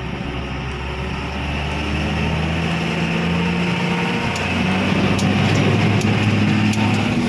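A motor vehicle's engine running and growing louder, its pitch shifting a few times.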